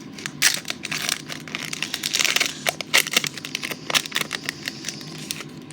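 Foil trading-card pack wrapper crinkling and tearing as it is opened: a quick run of sharp crackles, densest a little after two seconds in.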